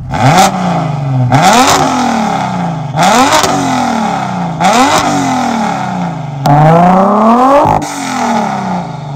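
BMW F80 M3's S55 straight-six, converted to a single Garrett turbo, revved hard five times while parked: each blip climbs quickly and falls back, the last one held longer before it drops.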